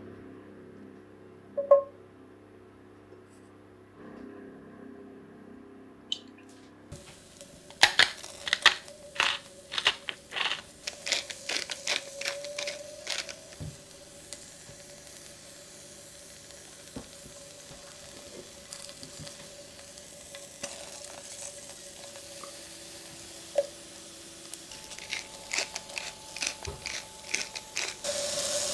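Asparagus spears and cherry tomatoes being placed into a stainless steel frying pan, clicking and tapping on the metal, over a light sizzle of hot oil. The clicks come in a quick run about a third of the way in and again near the end, where the sizzle grows louder.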